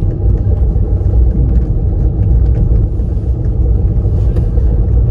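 Steady low rumble of a car driving over a dirt lane, engine and tyre noise heard from inside the cabin.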